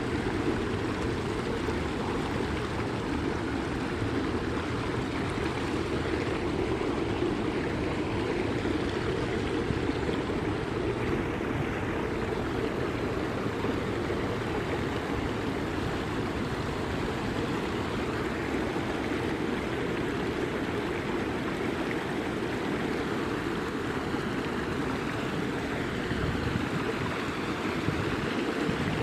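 A creek's water flowing with a steady rushing noise.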